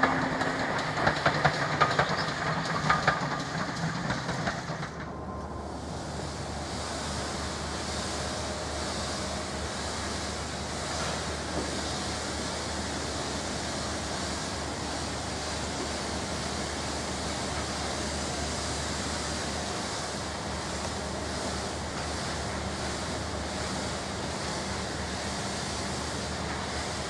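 Great Western pannier tank locomotive 6430 and its auto coach passing, with sharp clicks of wheels over rail joints and steam exhaust. About five seconds in, the sound cuts to a steady rushing noise with a low hum as the auto train approaches in the distance.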